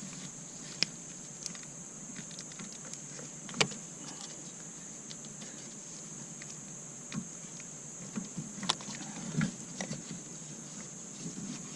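Scattered clicks and light knocks from the engine's wiring harness and its plastic clips and connectors being worked loose by hand, with a small cluster of them near the end.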